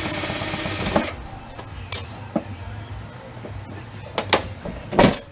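A rasping scrape lasting about a second, then scattered clicks and knocks on metal, the loudest one near the end: hand tools working on the table's metal frame while flathead screws are being taken out.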